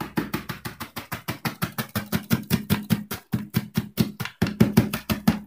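Kraut cabbage being shredded by hand on a hand shredder: quick, even rasping strokes, about five a second, with two short pauses past the middle.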